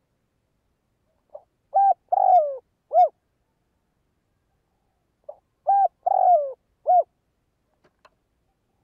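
Caged spotted dove singing two cooing phrases a few seconds apart. Each phrase is a soft short lead-in note, a coo, a longer coo falling in pitch, and a final short coo: the male's territorial song, used here as a decoy call to lure wild doves.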